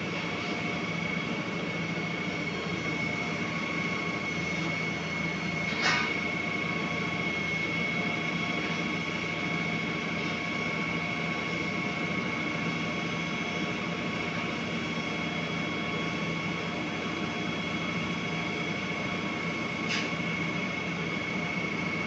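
SANY truck-mounted concrete pump running steadily while its hydraulic boom unfolds: a constant mechanical drone with a steady high whine. A short sharp sound comes about six seconds in and again near the end.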